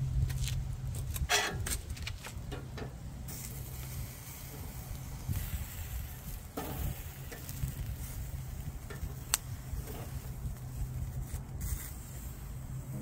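Meat patties and mushroom slices sizzling on a wire grill, with metal tongs clicking against the grate several times as the patties are turned over.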